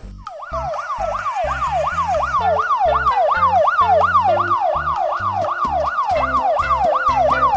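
Electronic siren of a toy fire truck: a fast wail rising and falling about two and a half times a second, loud and unbroken.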